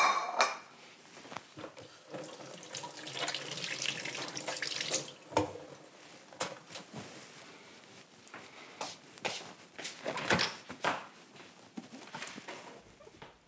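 Kitchen faucet running into a stainless steel sink while hands are washed under the stream, with several sharp clacks and knocks along the way.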